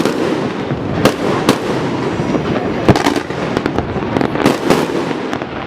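Fireworks display: a dense run of bangs and crackles, several sharp reports every second over a continuous rumble.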